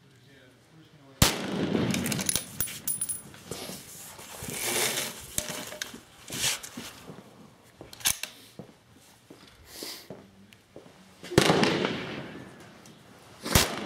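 Scoped precision rifle firing on an open range. A loud shot about a second in rings out for a couple of seconds. Clicks and rustling follow, then another shot near the end and a third sharp crack just after it.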